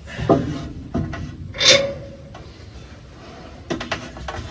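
Clanks and knocks from hand work on a round baler's heavy roller and frame, as the roller is shifted into place. A few knocks come early, then a louder clank about a second and a half in rings briefly, and a few quick clicks come near the end.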